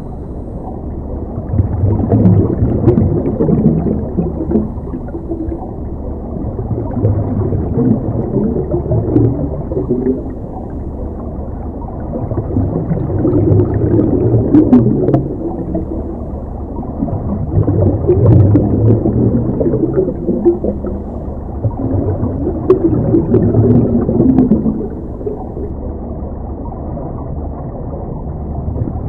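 Muffled underwater ambience: a steady low rumble with gurgling swells that come and go about every five seconds.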